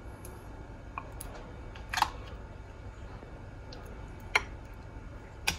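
Metal spoon clicking and scraping against a plastic blender jar and yogurt container while yogurt is scooped in: four short, sharp clicks spread apart, over a faint low hum.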